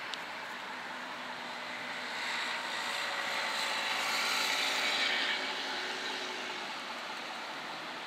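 City street traffic at an intersection, with a passing vehicle swelling to a peak about four to five seconds in and then fading.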